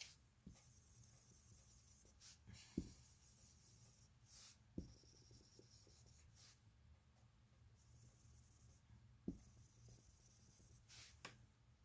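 Faint scribbling of a dry-erase marker colouring on a whiteboard, in a few short strokes with some light knocks.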